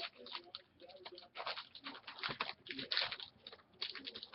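Trading cards and their packs being handled: a quick, irregular run of light clicks and rustles as cards are flipped and shuffled.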